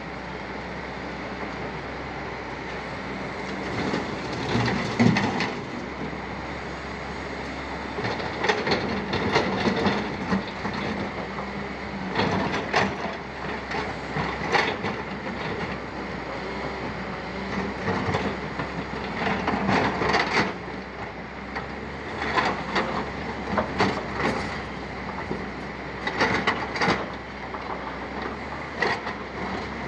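JCB JS200 tracked excavator's diesel engine running steadily under load, with bursts of rattling and clattering every few seconds as the machine digs rock and dumps it into a steel tipper truck bed.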